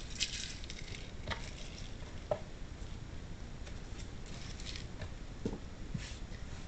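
Garlic being prepared on a cutting board: a few irregular knocks and taps of a knife and cloves against the board.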